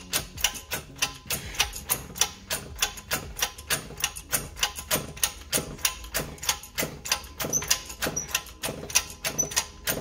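Hydraulic shop press being pumped to seat a tapered roller bearing onto a differential carrier: a steady run of sharp clicks, about four a second.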